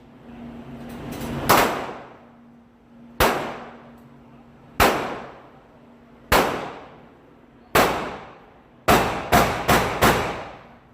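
Repeated hard strikes, each ringing and fading away over about a second, roughly one every one and a half seconds, then four quicker strikes near the end.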